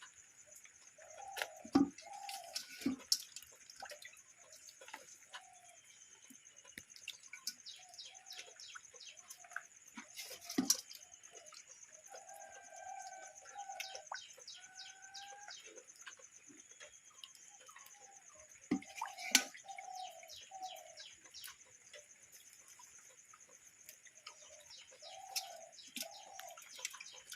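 Outdoor ambience of birds calling repeatedly over a steady, high insect-like drone, broken by a few sharp knocks.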